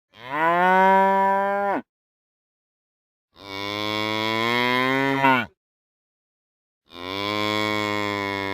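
Cow mooing: three separate moos, each about two seconds long, with dead silence between them. The first is higher-pitched than the other two, and the last is still going at the end.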